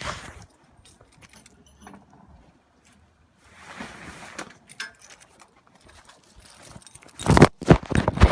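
Keys jangling with scattered light clicks and rattles, then a cluster of loud knocks or bumps near the end.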